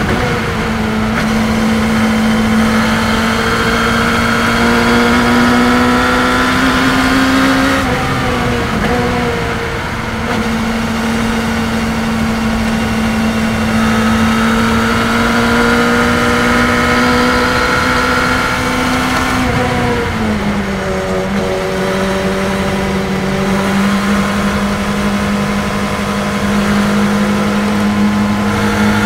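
Race car engine heard from the open cockpit at speed, holding a strong steady note that climbs slowly. Its pitch dips twice, about eight and twenty seconds in, as the car slows and shifts down for corners, over a rush of wind and road noise.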